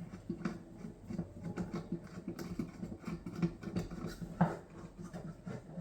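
An Allen key working a small screw out of a paintball marker's lower receiver: many light, irregular metal clicks and taps.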